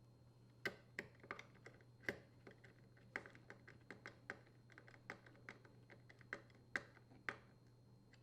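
Faint, irregular light clicks, about three a second, of a hand driver turning the screw that fastens the grounding wire to a dishwasher's metal door hinge.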